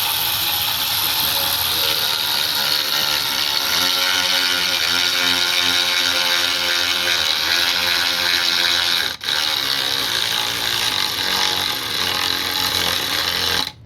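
Byczone 3/8" cordless electric ratchet wrench running continuously on a DeWalt 20V battery: a steady motor whine over gear noise. It stops for an instant about nine seconds in, then runs on until near the end.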